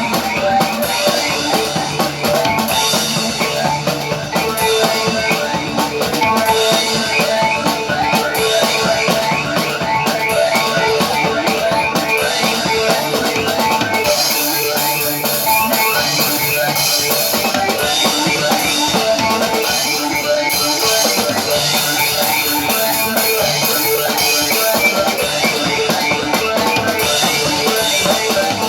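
Live rock band playing an instrumental passage: drum kit and distorted electric guitar, heard loud and raw.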